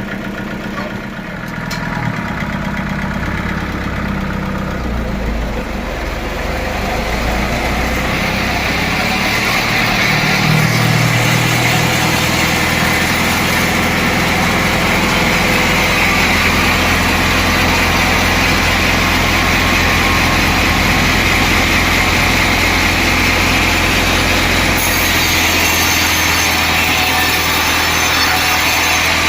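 Sawmill machinery running: a motor-driven saw that builds up over about the first ten seconds, then runs steadily.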